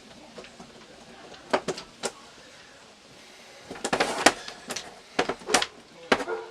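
A series of sharp knocks and clatters, like hard objects being handled and set down, with a busy cluster about four seconds in.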